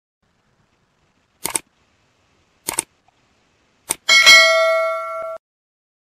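Three short clicks about a second apart, then a bright bell ding that rings and stops abruptly: sound effects for a like, subscribe and notification-bell animation.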